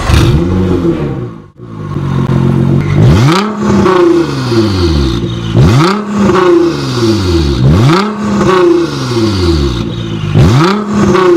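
Nissan GT-R's twin-turbo V6 breathing through an Armytrix aftermarket exhaust, revved repeatedly while parked. Each throttle blip rises sharply and falls away, about every two and a half seconds.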